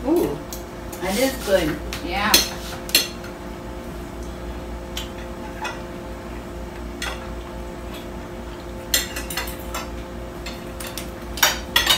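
Forks and knives clinking and scraping on dinner plates as people eat, in scattered separate clinks, over a steady low hum.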